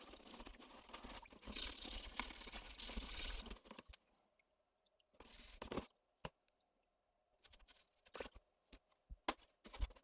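Hands working on small parts at a workbench: a few seconds of crunching, rustling noise, then short scrapes and a scatter of light clicks.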